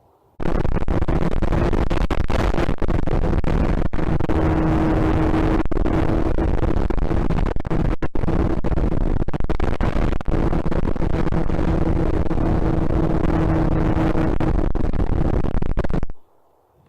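Loud wind rush buffeting a small camera's microphone, with a steady hum from an RC plane's electric motor and propeller that comes and goes. The sound starts abruptly just after the start and cuts off abruptly near the end.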